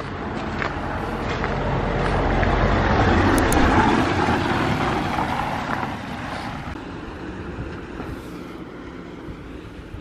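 A car driving past on a wet, slushy street: tyre and engine noise swells to a peak about three to four seconds in, then fades away as it drives off.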